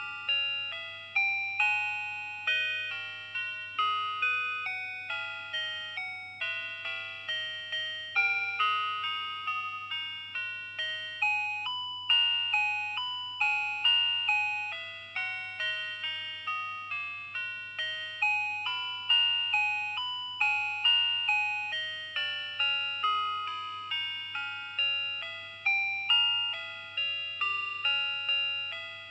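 1996 Tempic talking melody watch's dual-diaphragm sounder playing one of its built-in electronic tunes: a quick, high-pitched run of short notes, each starting sharply and fading away.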